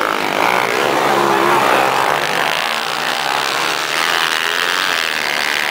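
Several motocross bikes accelerating past on a dirt track, their engine notes overlapping and wavering in pitch as they rev.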